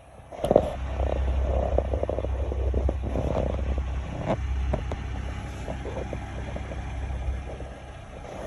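Low rumble of a moving vehicle heard from inside, starting suddenly about half a second in, with scattered knocks and rattles, easing off near the end.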